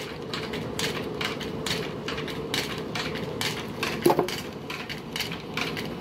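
Rapid, fairly regular knocking, about two or three knocks a second, over a steady low hum, with one louder sharp knock about four seconds in.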